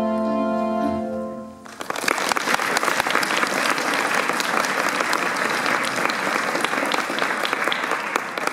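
A children's choir holds its final chord, which dies away about a second and a half in; then an audience applauds steadily.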